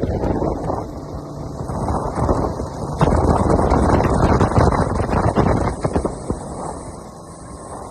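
Wind buffeting the microphone, a loud uneven rumble that swells about three seconds in and eases off near the end.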